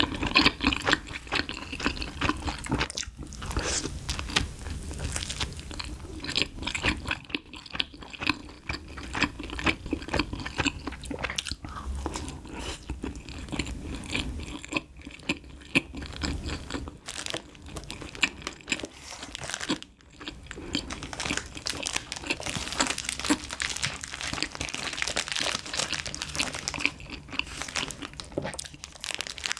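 Close-miked chewing and crunching of a slice of convenience-store pizza, with a plastic wrapper rustling in the last few seconds.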